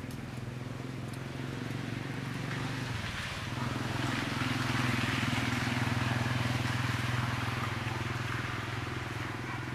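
A motor vehicle's engine running with a steady low hum, growing louder about four seconds in and easing off toward the end.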